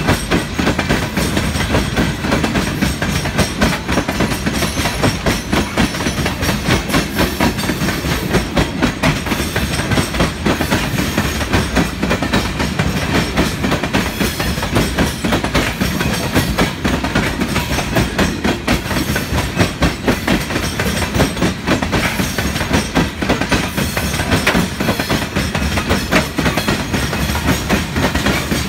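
Union Pacific gravel train's open-top hopper cars rolling past close by, their steel wheels clicking steadily over the rail joints in a continuous clickety-clack.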